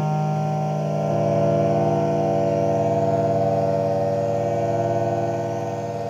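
Ciat-Lonbarde Rollz-5 avdog oscillators, run through gong filters and two Cocoquantus delays in series, making a steady buzzing drone of several held tones. Some of the tones change about a second in.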